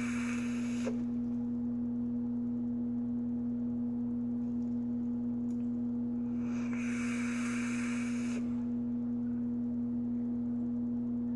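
Two long airy hisses of air being drawn hard through a dripping atomizer on a mechanical vape mod. One ends about a second in, and the other runs for about two seconds past the middle. A loud steady hum runs underneath throughout.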